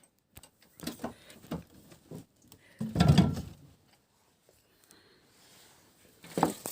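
Scattered light knocks and clicks, with one louder, low thump about three seconds in.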